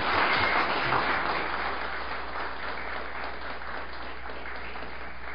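Audience applauding, strongest at first and then fading gradually.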